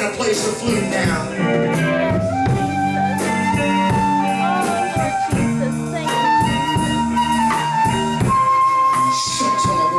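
Live band playing an instrumental passage: a flute carries a melody of long held notes over electric guitar, bass guitar and a drum kit, the flute coming in about two seconds in.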